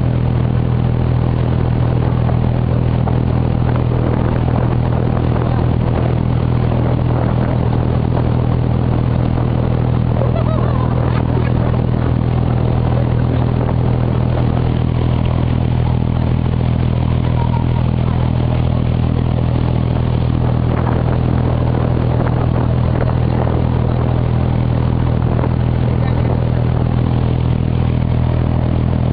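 A water taxi's diesel engine running steadily, with a deep, unchanging hum and some rattle above it.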